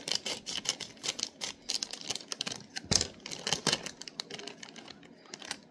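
Scissors cutting open a hot steam-in plastic bag of sweet peas: an irregular run of short, sharp snips and crackles of plastic that tails off near the end.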